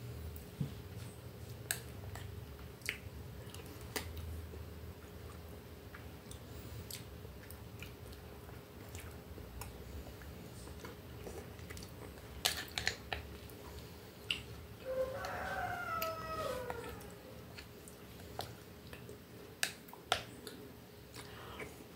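Metal spoon clinking and scraping in a small glass bowl of fruit salad, with soft chewing between the clicks. About fifteen seconds in, a pitched, wavering call lasting about two seconds is heard.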